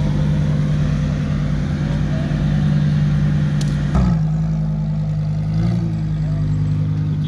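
Lamborghini Huracán's V10 running at a low, steady idle as the car creeps along at walking pace. About four seconds in there is a thump and the engine note settles a little lower, followed shortly after by a brief small rise in revs.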